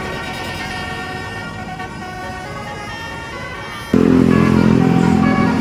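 Telolet basuri multi-tone bus horn playing a melody of held notes that step in pitch. About four seconds in, a louder, lower horn chord cuts in suddenly.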